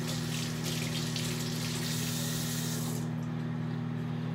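Kitchen tap running into a sink, shut off suddenly about three seconds in, over a steady low hum.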